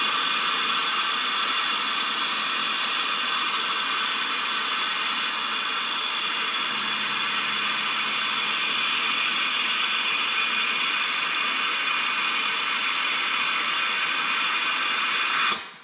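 Air-driven Snap-on vacuum coolant filler running on shop compressed air: a loud, steady hiss of air rushing through the tool as it pulls a vacuum on a snowmobile's empty cooling system. It cuts off suddenly near the end, once a good vacuum has been reached.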